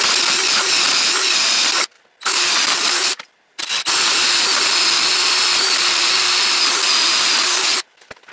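Cordless drill boring into the end of a pressure-treated wooden post, played back sped up. It runs in three spells with short stops between, the last and longest stopping shortly before the end.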